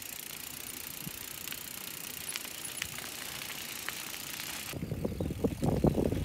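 Bicycle being ridden over grass: a steady tyre hiss with a few faint ticks, then, about five seconds in, louder irregular rattling and buffeting as it goes over rougher ground.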